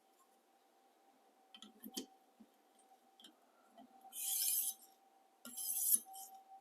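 Two strokes of a fine 1200-grit sharpening stone on a guided-angle system drawn along a chef knife's edge, each a short hiss of abrasive on steel, after a few light clicks of the stone and rod against the blade.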